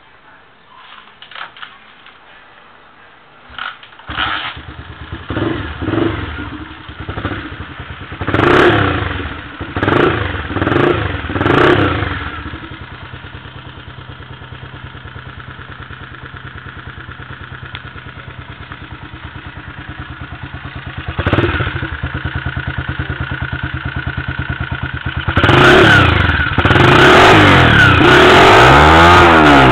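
Honda CG 125 Fan's single-cylinder four-stroke engine through an aluminium exhaust. It starts about four seconds in, is blipped several times, then settles into a steady idle. Near the end it is revved hard, rising and falling.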